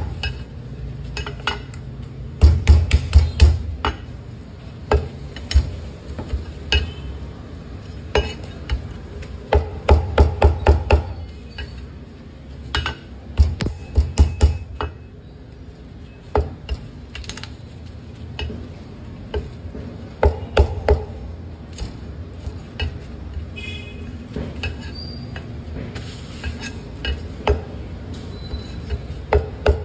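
A heavy Chinese cleaver chopping cooked poultry on a thick wooden chopping block. It goes in quick runs of rapid chops, each stroke landing with a knock and a low thud, with single chops between the runs.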